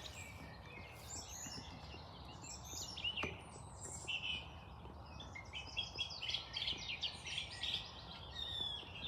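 A flock of rose-ringed parakeets calling, many overlapping calls with no break, and a single sharp click about three seconds in.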